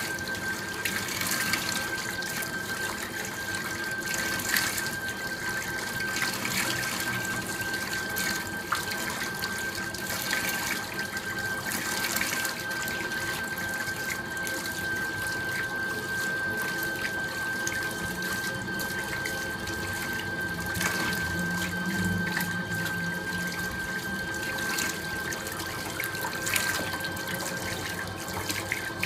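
Water running from a tap into a stainless steel sink while it is splashed by hand, rinsing soap off the face and then the arms, with irregular splashes over the steady flow. A thin, steady high tone sounds faintly underneath throughout.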